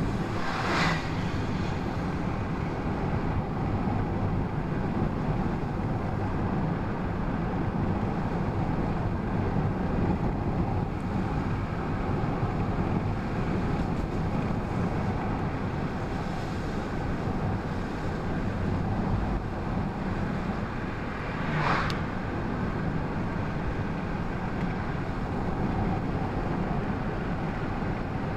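Steady road and engine noise inside a moving car's cabin, tyres rumbling on asphalt. About a second in, a school bus passing in the opposite lane makes a brief whoosh; a short sharp noise comes about three-quarters of the way through.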